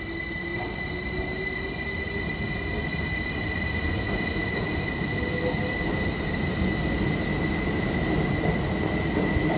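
Heathrow Express Class 332 electric multiple unit pulling away, its traction motors giving a slowly rising whine over a continuous rail rumble, with a steady high-pitched tone throughout.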